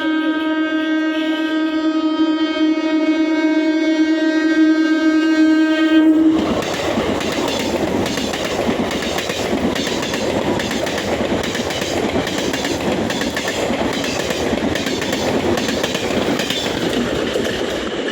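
Electric local train's horn sounding one long steady note for about six seconds, cutting off abruptly as the train runs through the station at speed. Loud wheel and rail noise follows, with a rhythmic clickety-clack of the wheels over the rail joints as the coaches pass.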